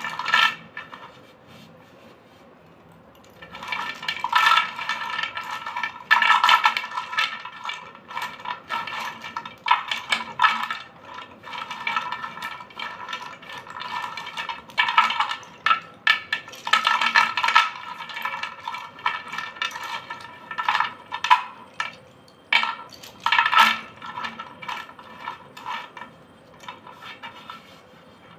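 White slate pencils stirred and tumbled by hand in a clay bowl, clattering and clinking bright against each other and the bowl in bursts. A short clatter comes at the start, then after a pause of about three seconds the jangling goes on almost without a break before thinning out near the end.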